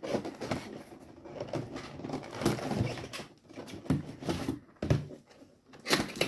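Contents being taken out of a cardboard box: packaging rustling, with light knocks and bumps.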